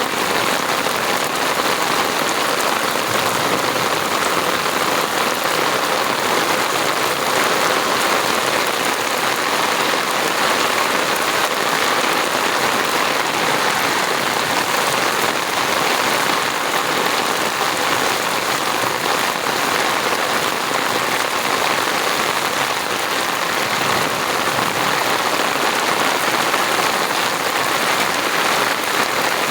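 Steady rain falling and pattering on surfaces, an even hiss thick with fine drop impacts.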